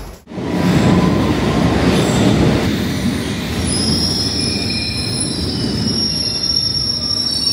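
A London Underground train moving along the platform, with a loud, heavy rumble. From about three and a half seconds in, several high-pitched metallic squeals sound over the rumble.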